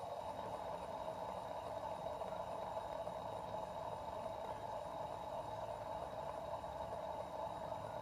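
Aluminium bar-shaped fidget spinner spinning freely on its bearing, a steady whir that holds the same pitch and level throughout.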